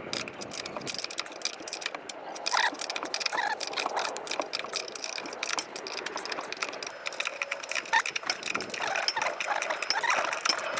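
Rapid clicking and metallic clatter from a ratchet wrench working a suspension bolt loose.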